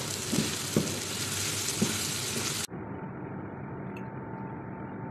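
Chicken strips and vegetables sizzling in a frying pan while being stirred with a wooden spatula, with a few light knocks of the spatula against the pan. About halfway through the sound cuts off abruptly to a duller, quieter steady noise with a faint hum.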